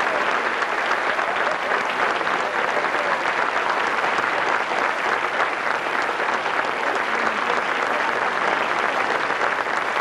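Audience applause: steady, sustained clapping from a large crowd.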